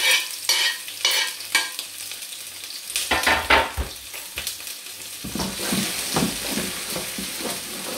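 Chopped onion sizzling in a hot frying pan. There are a few sharp knocks in the first two seconds as the last pieces come off the chopping board, then crackling and scraping as the pan is moved and shaken.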